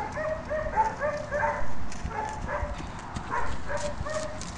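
Dutch Shepherd yipping and whining in a quick run of short, high-pitched cries, a few each second.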